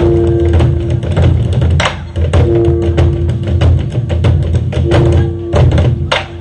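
Ensemble of drums playing a fast, dense rhythm of deep booming strokes and sharp stick clicks, a reconstruction of ancient Goguryeo drumming meant to evoke galloping horses' hoofbeats. A steady held note sounds three times over the drumming, and the playing thins out near the end.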